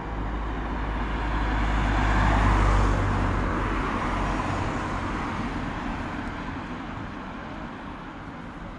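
A car driving past on the road, its engine rumble and tyre noise swelling to a peak about two and a half seconds in, then fading away.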